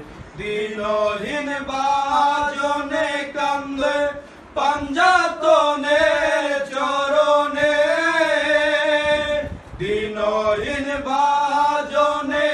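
Men singing a Bengali devotional jari-salam unaccompanied, in long held melodic phrases, with brief breaks about four and ten seconds in.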